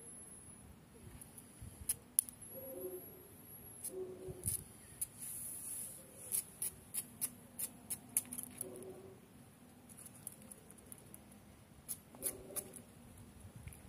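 Small dog's claws clicking and scraping on stone paving tiles as it paws at something on the ground, in scattered sharp clicks with a quick run of them about six to eight seconds in.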